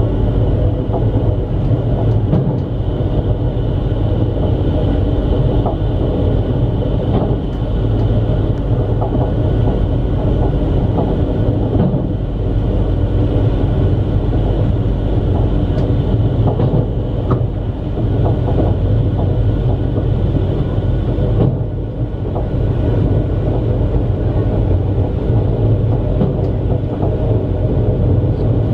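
High-speed electric multiple-unit train running at speed, heard inside the passenger car as a steady, loud running noise. There is a brief dip in level about three-quarters of the way through.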